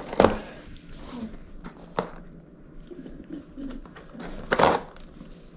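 Snack packaging being handled: a few sharp clicks and a short crinkly rustle about four and a half seconds in.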